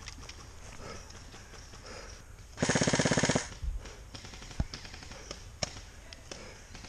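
Airsoft rifle firing one loud, rapid full-auto burst of just under a second, followed by a couple of single sharp cracks.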